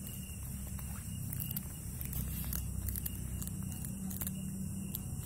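Cat chewing a piece of food: faint, irregular clicks of its bites over a steady low hum.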